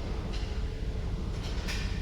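Car engine idling with a steady low rumble, with a couple of faint clicks.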